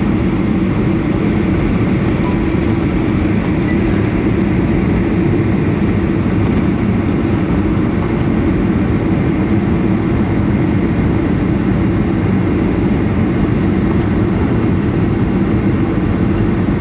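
Steady cabin noise inside a jet airliner on its approach to land: the engines and rushing air make an even, loud noise, heaviest in the low range.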